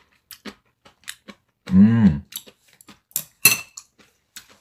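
Close-miked chewing of stir-fried kimchi, with many small wet mouth clicks. A hummed "mmm" of approval about two seconds in, rising then falling in pitch, and a sharp click about three and a half seconds in.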